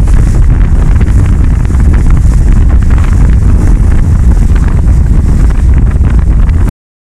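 Strong wind buffeting the microphone over the rush of water along a sailing yacht's hull as it sails heeled in a stiff breeze. The sound cuts off suddenly near the end.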